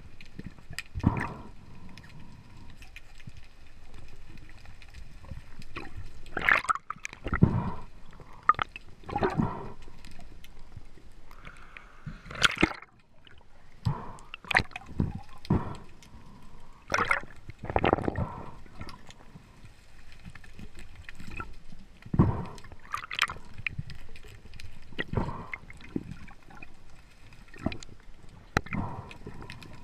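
Water sloshing and gurgling in irregular splashes every second or two, over a faint steady whine.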